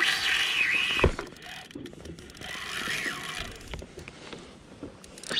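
Okuma Ceymar C65 spinning reel's drag buzzing as a hooked bonito pulls line off, in two runs whose pitch rises and falls, with a single sharp thump about a second in.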